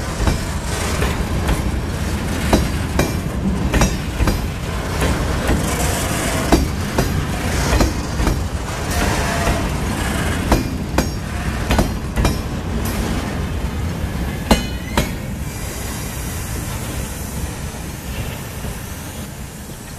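Loaded freight wagons rolling past close by, their wheels clacking over rail joints with frequent sharp clanks and a few brief wheel squeals. The sound fades over the last few seconds as the end of the train goes by.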